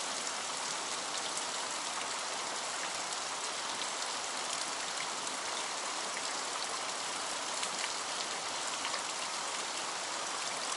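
Steady rushing and splashing of water flowing out of a culvert along a stone-lined bank, an even hiss with faint scattered drips.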